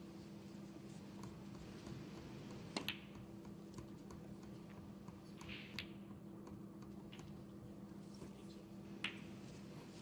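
Faint, sharp clicks of snooker balls: the cue ball striking the object balls, three or four times over about ten seconds, over a steady low hum.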